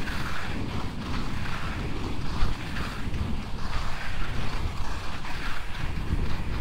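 Wind buffeting the microphone, with skis swishing over snow in a steady stride rhythm, about one stroke every two-thirds of a second.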